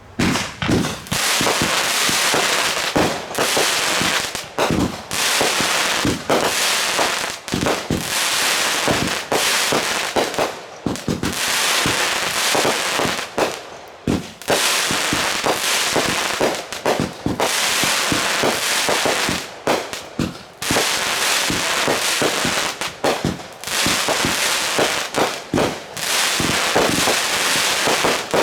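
Consumer fireworks going off in a rapid, dense barrage of sharp bangs and crackling that starts suddenly, with a few brief lulls.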